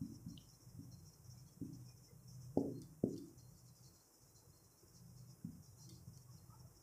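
Faint low hum with a few soft, dull knocks, the two clearest close together about two and a half seconds in.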